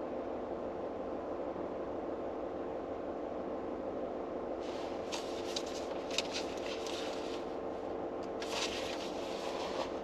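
Steady mechanical hum inside a car's cabin. Over it, two spells of light paper rustling, a book's page being handled and turned: one about halfway through and one near the end.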